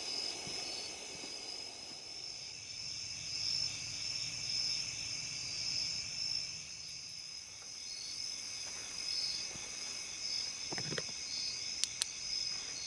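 A steady chorus of crickets and other night insects chirping in pulsing trills. Two short sharp clicks sound near the end.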